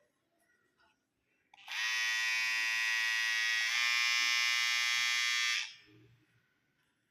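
Electric HTC hair trimmer switched on, its motor and blades buzzing steadily for about four seconds before it is switched off. The pitch shifts slightly partway through.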